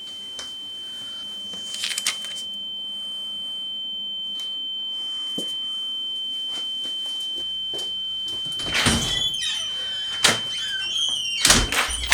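A steady, high-pitched ringing tone that does not change in pitch, under scattered small clicks and rustles. Louder clattering and knocking noises come in about nine seconds in and again near the end.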